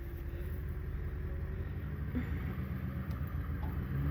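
Vehicle engine running at low speed, a steady low rumble whose hum grows stronger about two seconds in.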